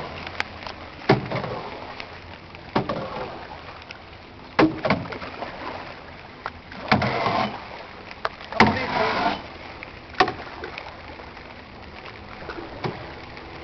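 Small boat moving through floodwater without a motor: scattered knocks against the hull and a couple of brief swishes of water, about seven and nine seconds in.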